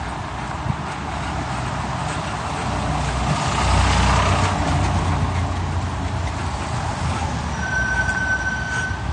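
Street traffic: a large road vehicle passes with a low rumble, loudest about four seconds in. A thin, steady high whine sounds near the end.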